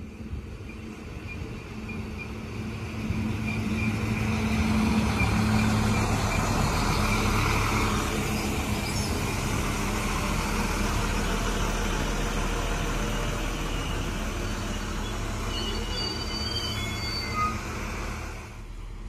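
Arriva LINT diesel multiple unit running into the station: a steady diesel engine hum with wheel and rail noise, swelling as it draws close about four seconds in. Thin high squeals near the end as it brakes alongside the platform.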